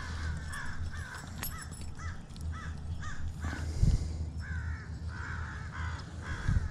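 A bird calls over and over in short arched notes, about two a second. Two low thumps come through, the louder one about four seconds in and another near the end.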